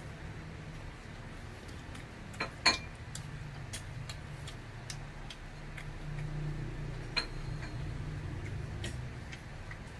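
Metal utensils clinking and scraping against the aluminium foil pot of a self-heating hotpot while the noodles are stirred and lifted, as a series of sharp clinks. The loudest comes about two and a half seconds in. A steady low hum runs underneath.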